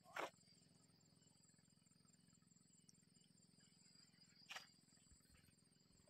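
Near silence with faint, steady, high-pitched insect chirring that pulses evenly. Two brief sharp clicks break in, one about a quarter second in and one about four and a half seconds in.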